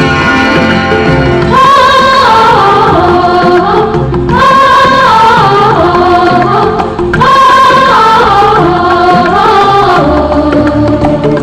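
Music: the opening of a 1980s Hindi film song, a lead melody played in three repeated phrases, each starting about three seconds after the last, before the vocals come in.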